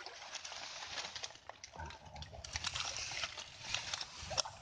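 A hand and forearm working down into a flooded, muddy eel hole, sloshing the water and squelching the mud, with a steady run of small clicks and crackles from disturbed mud and debris.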